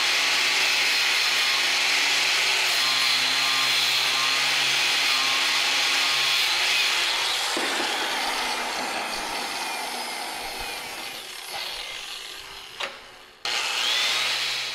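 Corded angle grinder with a red disc grinding stuck-on old gasket material off a metal part held in a vise. After about seven seconds it is switched off and winds down slowly, then it starts again near the end.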